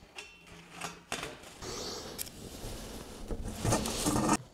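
Duct tape being pulled off the roll in a short ratcheting rip just after the start, then rustling as it is wrapped and pressed around the joint between aluminum flexible duct and a sheet-metal reducer cone. The handling noise is loudest near the end.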